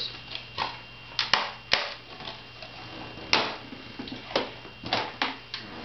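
Plastic DVD cases being handled: a series of sharp, irregular clicks and clacks.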